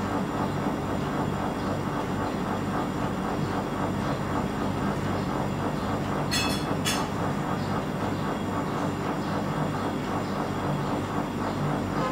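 A steady low rumbling drone, with two short sharp clinks about six seconds in.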